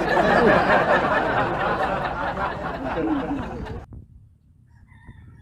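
Several people laughing and chattering together; the burst stops about four seconds in.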